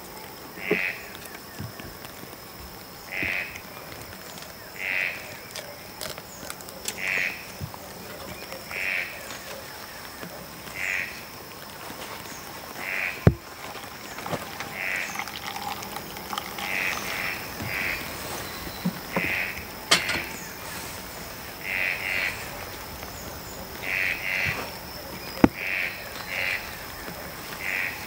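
A frog calling: a short call repeated about every one to two seconds, sometimes in quick pairs, over the steady hiss of rain, with a few sharp taps.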